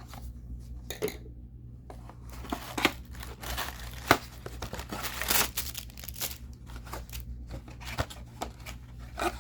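Paper and cardboard packaging of an action-figure box being handled, crinkled and torn open, with scattered sharp clicks and rustles that are busiest in the middle and later part.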